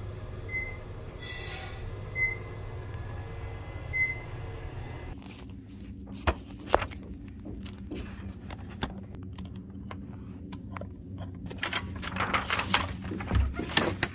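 Steady low hum, then from about five seconds in, scattered clicks, knocks and rustling of things being handled, busiest near the end.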